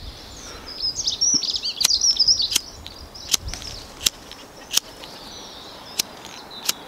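The flint wheel of a gas-empty lighter being struck again and again to throw ferrocerium sparks onto char cloth: about seven sharp clicks, a little under a second apart. Small birds chirp in the first few seconds.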